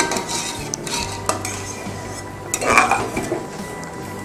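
Metal ladle stirring and scraping inside an aluminium pressure cooker, mashing soft-cooked dal, with a few sharp clinks of metal on metal, the loudest nearly three seconds in.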